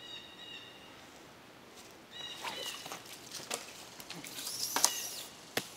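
Short high bird calls in woodland. About four and a half seconds in comes a throw weight and line being hurled up into the trees: a swish that rises and falls, with a sharp snap and a few clicks.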